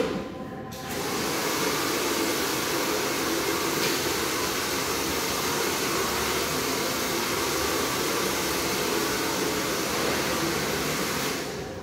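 A short knock, then a barber's electric air appliance starts about a second in and runs with a steady rush of air until it is switched off near the end.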